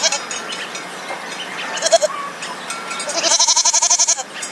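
Goats bleating: the tail of one wavering bleat at the start, a short bleat about two seconds in, and a longer quavering bleat near the end.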